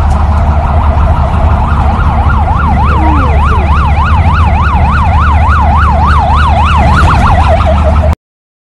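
An emergency vehicle's siren in a fast yelp, sweeping up and down about four times a second from about two seconds in, over a loud low rumble of road and engine noise. It all cuts off suddenly near the end.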